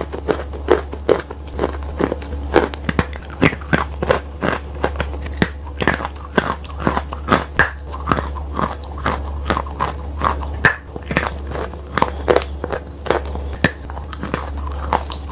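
Wet chalk coated in clay paste being bitten and chewed close to the microphone: irregular soft crunches and chewing, several a second, over a steady low hum.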